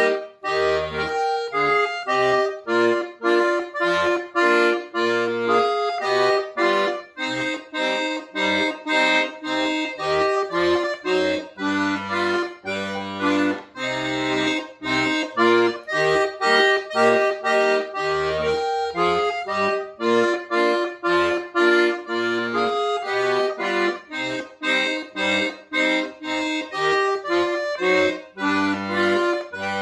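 Solo chromatic button accordion playing a tune: a melody of short notes over a bass part of short low notes and chords.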